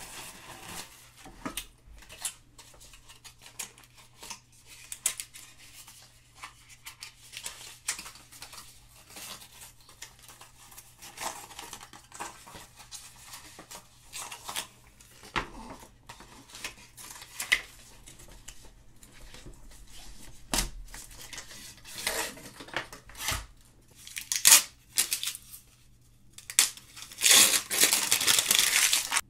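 New laptop packaging being handled and peeled: the thin protective sheet torn away from the MacBook Pro's lid, then the charging cable's wrap and the power adapter's film pulled off. Scattered rustles, tears and small clicks, with a burst of loud crinkling near the end.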